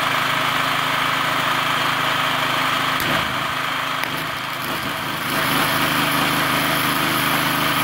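MultiPro GGA-3900 petrol generator running steadily while powering an inverter welder. About three seconds in, a gasless flux-core MIG welding arc strikes, and from about five seconds in it adds a high crackling hiss over the engine.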